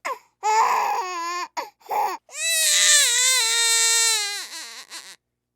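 A baby crying in repeated bouts: a couple of short cries, then one long wail of about two seconds that trails off into short, breathy sobs, then a pause near the end.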